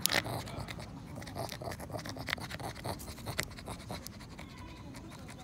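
A Shih Tzu tugging and gnawing on a wooden stick: irregular scratching and scraping as the stick grinds in its teeth. The sharpest scrape comes right at the start.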